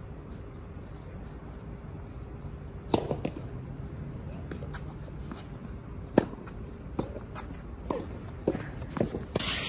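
Tennis rally: sharp pops of racket strings striking the ball, loudest about 3 s in and a little past halfway, with fainter hits and bounces from the far end of the court and the player's footsteps between them. A short burst of rushing noise comes at the very end.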